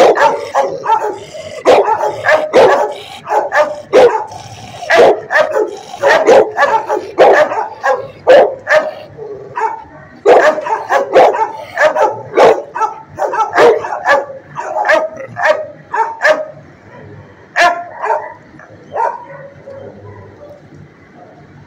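Dogs barking: many sharp barks in quick, overlapping succession, thinning out to scattered barks after about 16 seconds.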